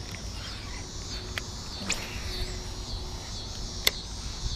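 Birds chirping steadily over a low rumble of open-air background noise, with a few sharp clicks from a baitcasting reel being handled, the loudest near the end.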